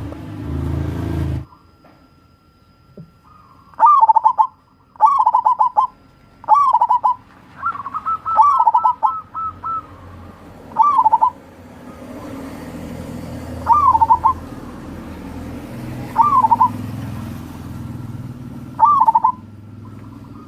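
Zebra dove (perkutut) cooing: about eight short phrases of rapid trilled coos, a couple of seconds apart, with one longer run of coos about eight seconds in. A low rumbling noise fills the first second and a half, then stops suddenly.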